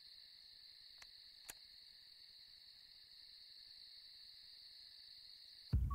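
Crickets trilling steadily in a faint, unbroken high-pitched chorus. Two faint ticks sound about one and one and a half seconds in.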